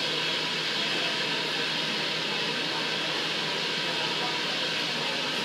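Steady machine noise with an even level and no starts or stops.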